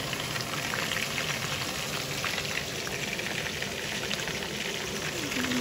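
Chicken pieces shallow-frying in oil in a frying pan: a steady sizzle with fine crackles.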